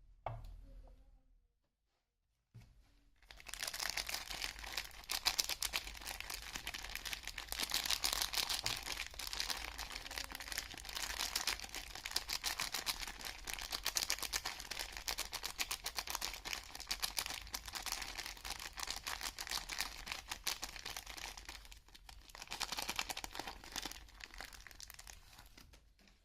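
Soap packaging being crinkled and torn open by hand: a dense, continuous crackling rustle that starts about three seconds in, briefly lets up near the end, then resumes.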